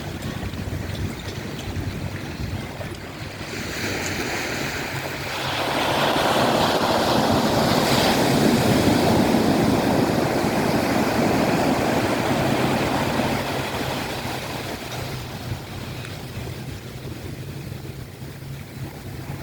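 Ocean surf: a wave builds about five seconds in, breaks and washes loudly for several seconds, then fades away, over a low steady hum.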